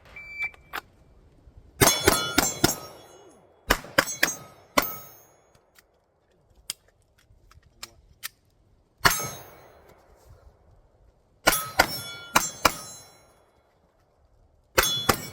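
A shot timer's start beep, then pistol shots in quick bursts of two to four with pauses between. Each shot is followed by the ringing clang of hit steel targets.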